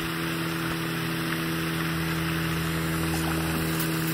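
Steady hiss with a low, even hum underneath, unchanging throughout; the splash of the fish striking the lure is not heard.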